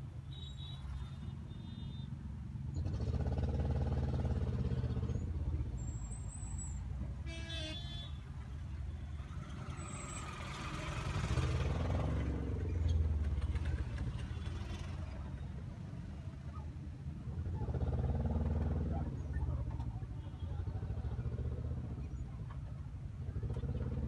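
Street traffic: a steady low engine rumble, with passing vehicles growing louder and fading three times.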